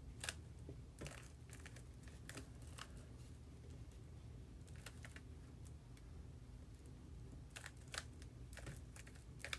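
Rubik's cube being turned through a sequence of moves: faint, scattered plastic clicks and clacks of the layers turning, over a low steady hum.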